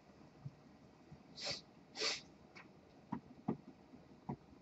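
A person's two short, breathy exhales close to the microphone, about a second and a half and two seconds in, followed by a few faint clicks.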